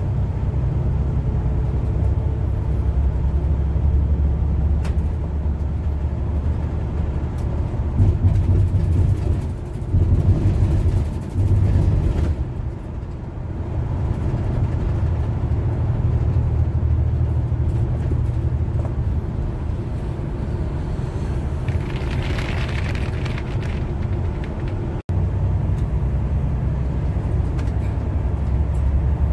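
Bus engine and road noise heard from inside the moving bus: a steady low rumble that shifts and briefly drops away about a third of the way through. About three-quarters through there is a short hiss, and a moment later the sound cuts out for an instant.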